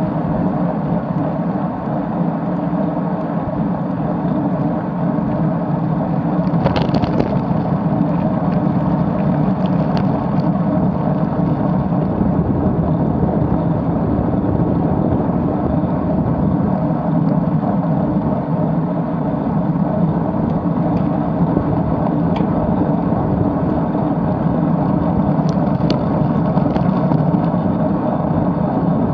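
Wind rushing over a bike-mounted camera's microphone on a road bike climbing at about 25 km/h, mixed with tyre and road rumble. A few short ticks and clicks stand out, a small cluster about seven seconds in.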